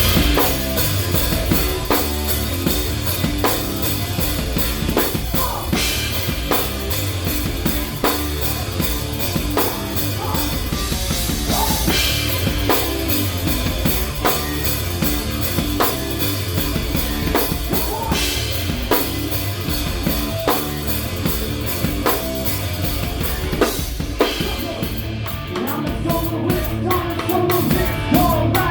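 Live rock band playing an instrumental passage with the drum kit to the fore over steady bass, and a cymbal crash about every six seconds. Near the end the cymbal pattern turns into a quicker run of ticks.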